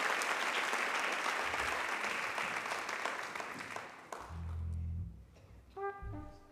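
Audience applauding, dying away after about four seconds. Then a low double bass note sounds, and the first trumpet notes come in near the end.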